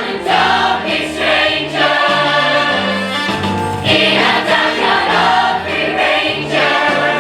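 A children's chorus singing a musical-theatre number together over an instrumental backing with a bass line that steps from note to note.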